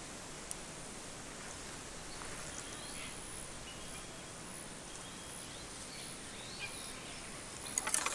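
Outdoor bush ambience: birds chirping now and then over a high insect buzz that comes and goes. A short burst of rustling and clicks comes near the end.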